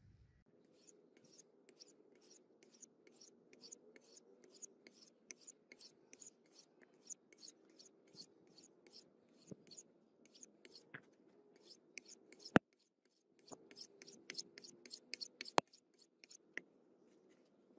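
Steel cleaver blade being drawn over a flat whetstone to sharpen it: a rhythmic scraping of about two to three strokes a second. The strokes pause briefly about two-thirds through, and two sharp clicks, the loudest sounds, come around then.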